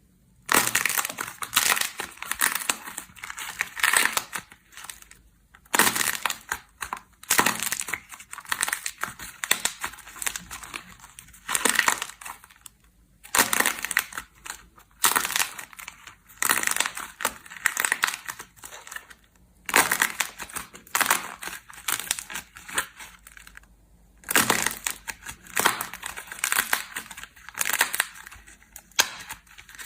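Slime being squeezed and pressed by hand, crackling and popping in stretches of a second or two with short pauses between.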